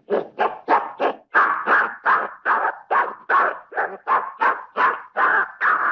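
A primate calling in a rapid, even series of short, harsh calls, about three a second.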